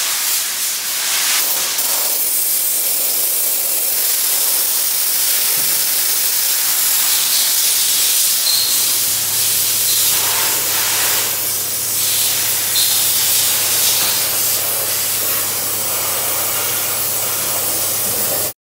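Abrasive sandblaster running, a loud steady hiss of blast air and grit. A low steady hum joins about halfway through, and the sound cuts off suddenly near the end.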